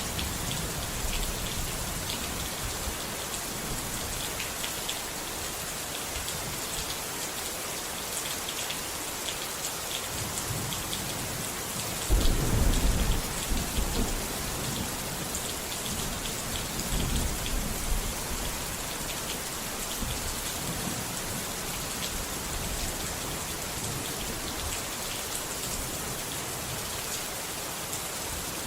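Steady rain falling, with a roll of thunder that breaks in suddenly nearly halfway through and rumbles away over several seconds.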